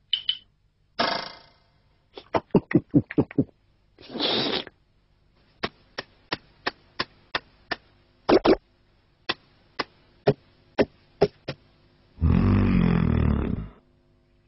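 Cartoon sound effects: a string of short pops and clicks, with an evenly spaced run of about three a second in the middle, then a longer low sound lasting about a second and a half near the end.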